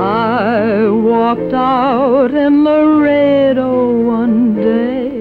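A woman singing a slow ballad with wide vibrato over instrumental accompaniment, holding one long note through the middle.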